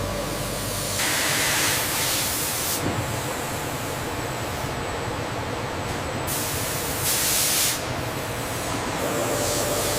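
Steady hissing industrial noise, like air or steam jets, with faint steady humming tones. It changes abruptly several times and swells louder about a second in and again around seven seconds.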